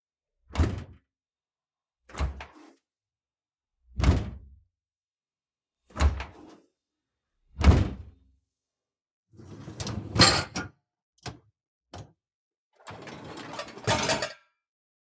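Dishwasher door being opened and shut, giving a series of five dull thuds about every two seconds. In the second half come two longer rattling, scraping movements with two sharp clicks between them.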